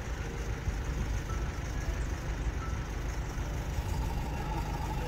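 Steady low rumble of a running engine, even throughout with no sudden sounds.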